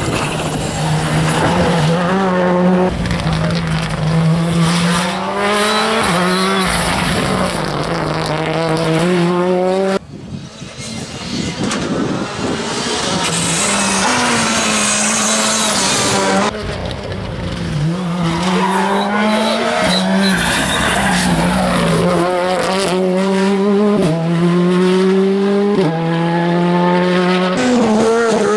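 Rally cars driven hard through tarmac bends, one after another: each engine revs up and drops sharply at every quick upshift as it accelerates out of the corner, with tyre squeal.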